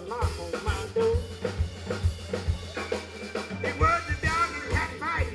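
Live band playing an instrumental passage: a drum kit keeps a steady beat under bending melodic lead lines, with keyboard and guitar.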